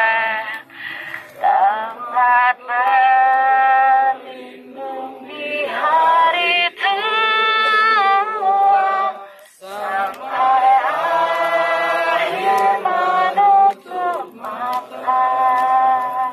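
Slow singing in long held notes with smooth glides between them, phrase after phrase, breaking off briefly about nine and a half seconds in.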